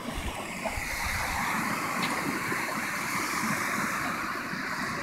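Steady wash of ocean surf breaking and running up the beach, with a few low rumbles on the microphone in the first second and a half.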